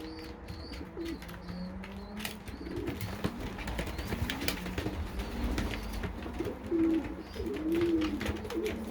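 Racing pigeons cooing: low, bowed, rolling coos repeated several times, loudest near the end, with scattered light clicks and taps between them.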